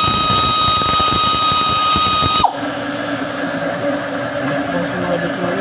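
Handheld electric power tool running at a steady high whine, then winding down and stopping about two and a half seconds in.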